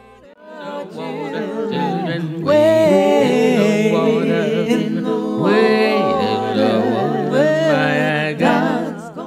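Voices singing a cappella, with no instruments. The singing grows much louder about two and a half seconds in and stops just before the end.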